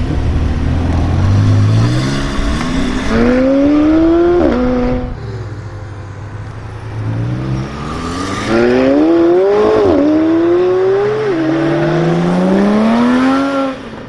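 McLaren 720S twin-turbo V8 accelerating hard, its pitch climbing and then dropping sharply at each of several upshifts. The sound falls away near the end.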